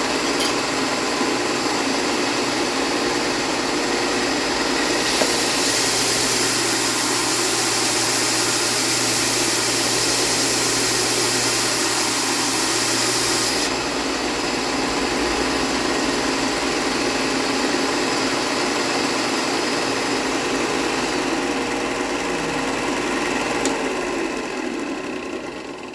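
Bench belt-and-disc sander running steadily, with a wooden workpiece pressed against the abrasive for several seconds partway through, adding a louder hissing grind. The motor winds down near the end.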